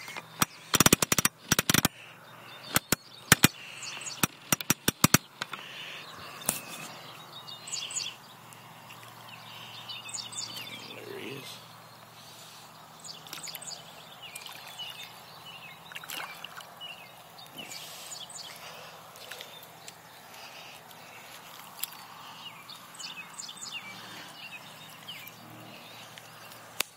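A run of sharp clicks and knocks in the first five seconds, then birds chirping and calling, with many short high calls over a faint steady background.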